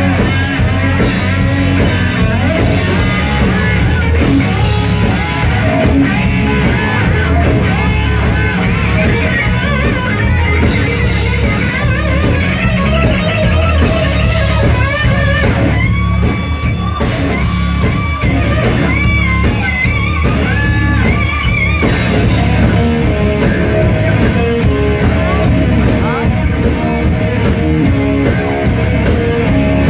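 Live rock band playing loud: electric guitar and drum kit.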